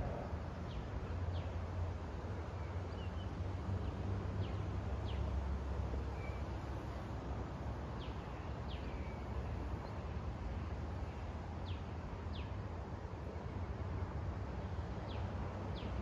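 A bird calling in pairs of short, high, descending whistles, a pair about every three to four seconds, over a steady low background rumble.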